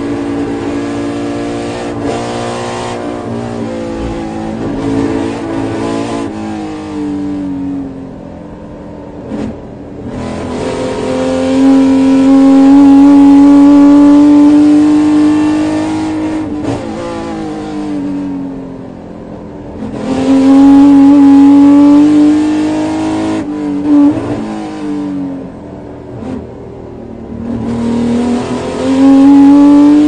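Ferrari 250 GTO's V12 engine heard from inside the cockpit, revving up and pulling hard at full throttle several times. Its pitch climbs and holds at the loudest pulls, about a third and about two thirds of the way in, and falls away between them as the throttle is lifted.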